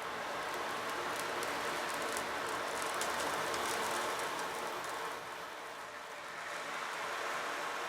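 Sea waves washing on a shore in a soundscape backing track: a rushing surge of surf with fizzing foam that eases off about five seconds in and builds again near the end.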